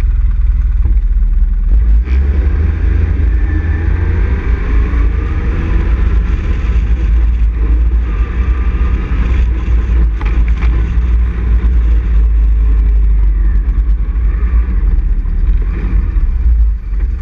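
ATV engine running as the quad rides over a gravel trail, its pitch rising and falling with the throttle over a heavy, steady low rumble.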